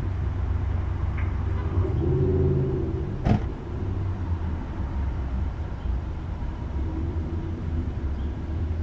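Car engine idling with a steady low hum while stopped, and one sharp click about three seconds in.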